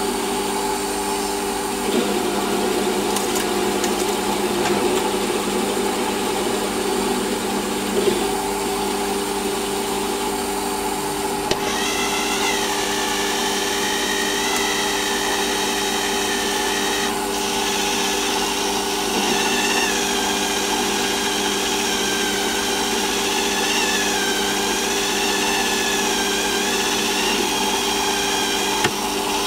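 Metal lathe running and turning a metal part, the tool cutting steadily over a constant motor and gear hum. A wavering high squeal joins about twelve seconds in and carries on.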